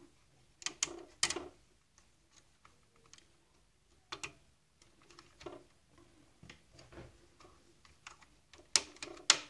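Scattered clicks and light taps of small plastic and metal parts being handled as a switch is fitted into the plastic mount inside a Saeco Royal coffee machine and its wires connected. The sharpest clicks come in pairs, about a second in and again near the end.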